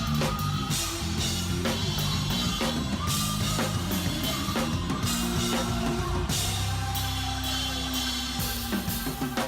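Drum kit played busily in a band performance, with rapid strokes over a held bass line.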